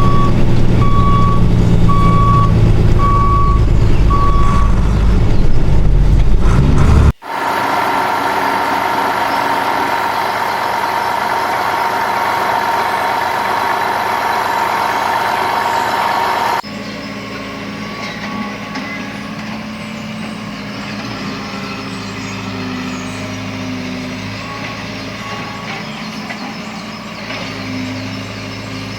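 Truck engine running with a reversing beeper sounding about once a second for the first few seconds. It then cuts off suddenly and gives way to a steadier hum; about ten seconds later that drops to a quieter engine hum.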